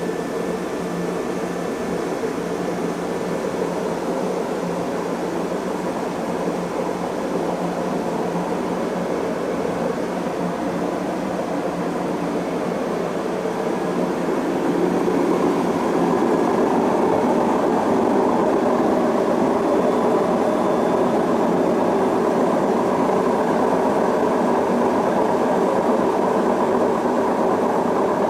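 Beko D5 7101 washing machine running on spin with a steady rumble and hum that grows louder about halfway through as the drum speeds up. The noisy spin is the sign of a failed drum bearing whose balls have broken apart.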